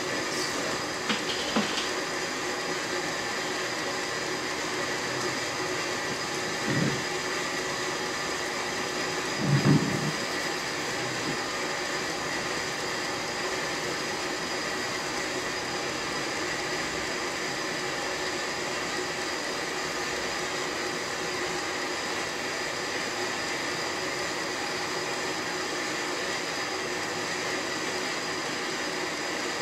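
Steady whirring drone of a running machine, with several faint steady tones in it. A few soft low knocks come in the first ten seconds, the loudest about ten seconds in.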